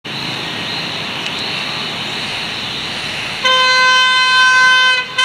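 Freight locomotive's horn sounding a long, loud blast about three and a half seconds in, breaking off briefly near the end and starting again, over a steady hiss.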